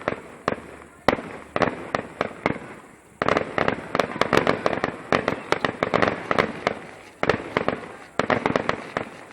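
Fireworks display: a rapid barrage of bangs and crackling, coming in volleys about a second apart, densest through the middle. The volleys stop abruptly at the end.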